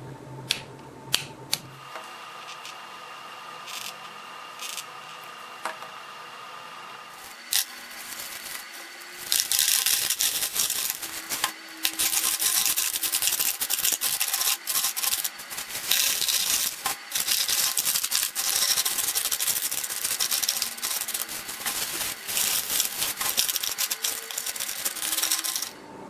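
Small stones clattering and rattling as they are poured and pushed around in a clear plastic tub. The dense crackle starts about nine seconds in and stops just before the end. Before it come a few light clicks and knocks from the tub being handled.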